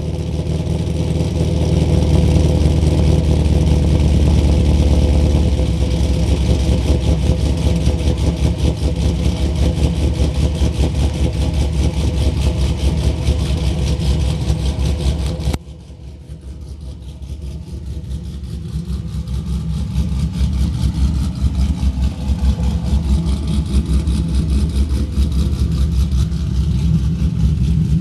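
Camaro SS's 5.7-litre LS1 V8 with ported heads and a Texas Speed 228R camshaft idling with a choppy, pulsing lope through its exhaust. About halfway through the sound drops abruptly and turns duller, then builds back to the same steady idle.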